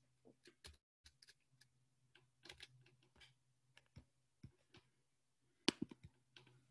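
Faint, irregular clicking of a computer keyboard and mouse, with a quick cluster of louder clicks near the end.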